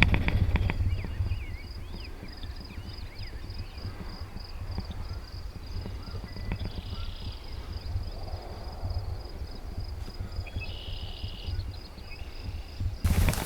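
Quick footsteps through a field in the first second or so, then a steady low rumble of wind on the microphone with faint high chirps of birds. A loud new noise starts just before the end.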